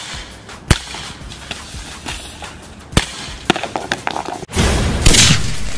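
Background music with a few sharp cracks: CO2 BB revolver shots hitting drink cans, one under a second in and two close together around three seconds in. About four and a half seconds in, a loud rushing noise starts.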